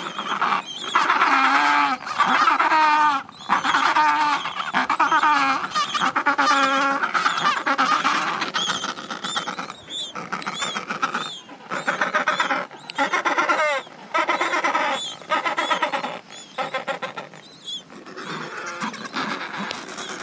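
Adélie penguin colony: many penguins calling at once, pitched calls with a wavering tone, overlapping in runs broken by short pauses.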